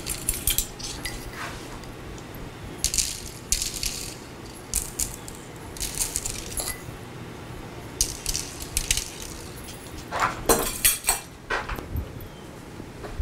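Sprinkles rattling in their container as it is shaken over freshly iced cookies, in about half a dozen short bursts a second or two apart. A louder clatter comes near the end.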